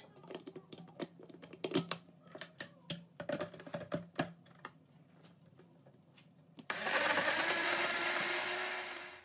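Plastic knocks and clicks as the Kenwood blender's jug is handled and set on its motor base. About two-thirds of the way in, the blender starts and runs steadily for a couple of seconds, blending a mango lassi, then winds down near the end.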